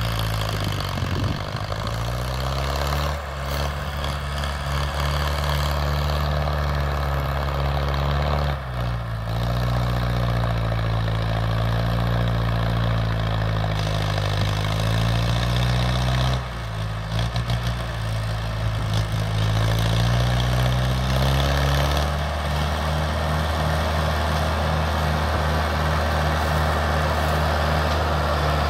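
Diesel tractor engine running under load while hauling a fully loaded sugarcane trolley. Its pitch dips and rises again several times, then holds steady for the last quarter.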